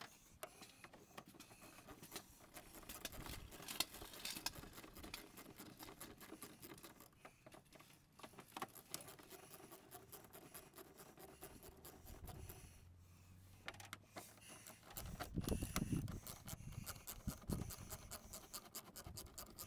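Faint, scattered clicks and scrapes of a hand ratchet and extension loosening the 10 mm bolts of a plastic fan shroud, louder with some handling thumps in the last few seconds.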